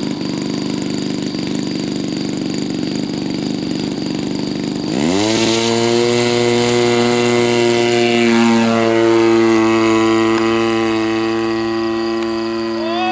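RCGF 26cc two-stroke gas engine of a model Pitts Special biplane idling, then throttled up about five seconds in, its pitch rising quickly to a loud, steady full-power run as the plane takes off and climbs.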